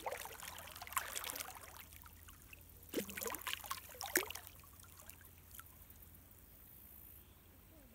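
River water splashing and sloshing as a boy wades forward and pushes himself down into it to float, in two bouts: one at the start and one about three seconds in.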